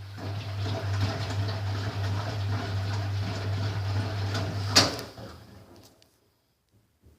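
Ariston Quadrifoglio LB476ST washing machine taking in water: a steady low hum with water rushing, which stops about five seconds in with a sharp click and fades out over the next second. A couple of faint clicks follow near the end.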